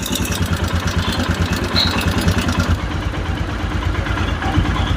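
Royal Enfield Himalayan single-cylinder engine idling, with a fast, even ticking over the low pulse of the engine that is clearest in the first half: the top-end 'tik tik' noise of the kind the owner blames on the valves, guides and rockers.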